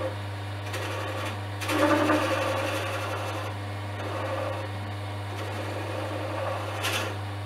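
Axminster Craft wood lathe running with a steady hum while a chisel scrapes and cuts a spinning olive wood pen blank, the cut loudest about two seconds in, with a short click near the end.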